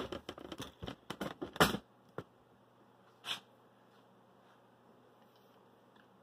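Handling noise: a quick flurry of rustles, taps and knocks, the loudest about a second and a half in, as the camera is moved and the setup touched. Then two isolated clicks, and a faint low hum in a quiet room.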